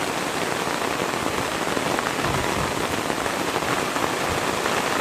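Steady hiss of water noise, even and unbroken, of the kind made by rain falling on a surface or a river running close by.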